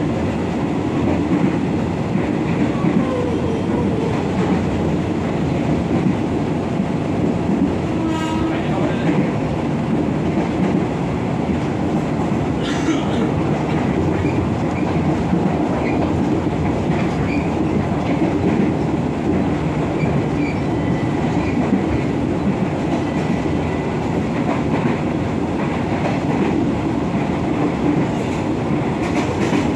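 KRL Commuter Line electric train running at speed, heard from inside the carriage: a steady running noise of steel wheels on the rails.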